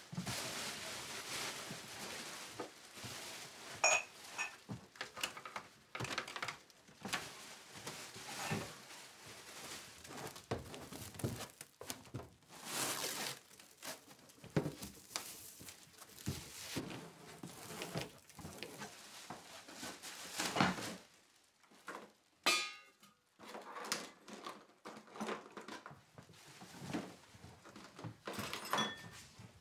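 Household goods being handled and moved: irregular knocks, thunks and the crinkle of plastic wrap, with one short squeak late on.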